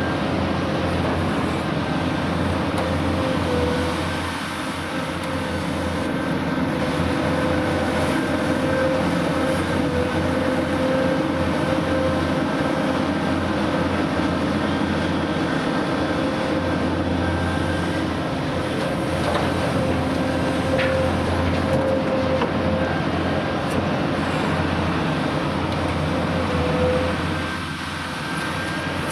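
Heavy diesel earthmoving machinery running steadily: a large excavator working as it loads a mining dump truck, with a deep engine drone and a steady whine above it. The level dips briefly twice, about four seconds in and near the end.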